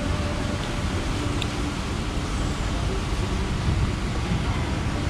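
Steady low rumble of road traffic, with a faint clink about a second and a half in.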